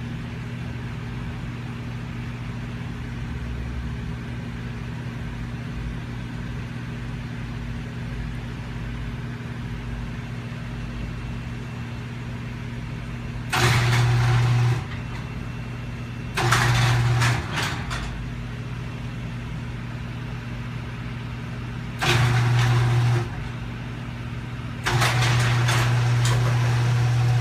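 Genie garage door opener's motor running in short starts and stops: a steady low hum, then three loud runs of about a second each and a longer one near the end.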